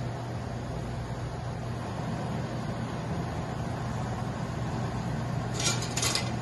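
Beef round searing in hot oil in a stockpot, a steady sizzle over a constant low hum. A brief metallic clatter about six seconds in as the tongs are picked up.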